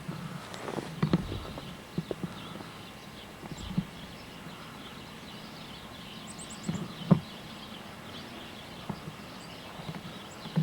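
Footsteps in snow: irregular, muffled crunches and thuds a second or more apart, over a steady outdoor hiss.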